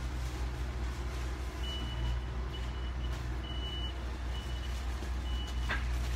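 Steady low hum, with a faint high-pitched electronic beep repeating about once a second from about a second and a half in. A brief knock near the end.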